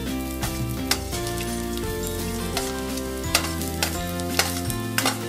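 Minced garlic sizzling in hot oil in a stainless steel pot, with a metal spoon stirring and clinking against the pot every second or so, over background music.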